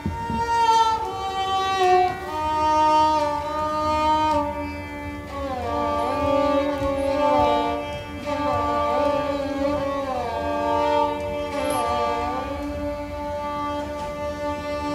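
Instrumental music: a slow melody on a bowed string instrument, held notes with slides up and down in pitch, in an Indian classical style.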